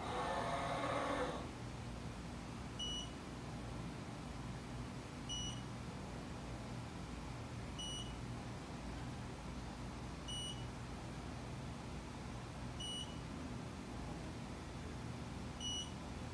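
Short beeps from a Mitutoyo Bright 916 coordinate measuring machine, six in all, about every two and a half seconds: each is the signal that the Renishaw TP2 touch-trigger probe has touched the part and taken a point. They sit over a steady low hum from the machine, and a brief rushing noise fills the first second or so.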